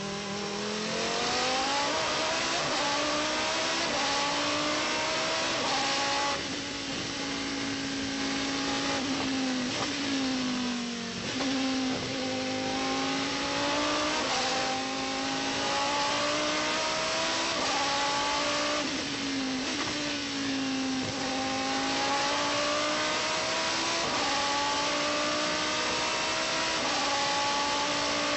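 Judd V10 engine of a Pescarolo 01 Le Mans prototype heard from onboard at racing speed, its pitch climbing as it accelerates. The note falls away three times, about six, ten and nineteen seconds in, then climbs again.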